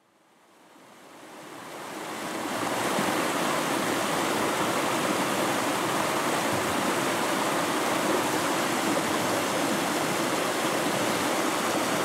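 A steady rushing hiss, even across low and high pitches, fades in over the first few seconds, holds level, and stops abruptly at the end.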